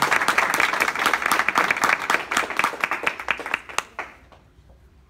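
Audience applauding, the clapping thinning to a few scattered claps near the end and stopping about four seconds in.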